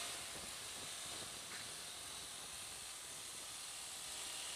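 Steady rush of wind and road noise on the microphone of a motorcycle being ridden along, with no clear engine note.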